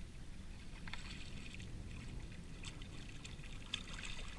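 A hooked puppy drum (juvenile red drum) thrashing and splashing at the surface close beside the kayak, in bursts about a second in, near three seconds and near the end, over a steady low rumble.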